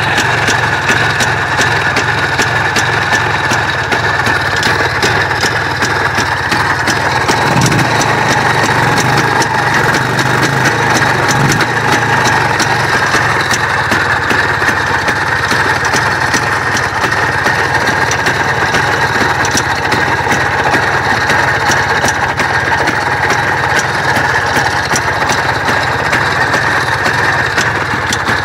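Vehicle engine idling steadily with a fine ticking over it, the extraneous noise that is being recorded.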